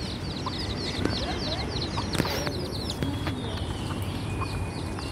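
Chicks peeping: a continuous stream of short, high-pitched calls, several a second.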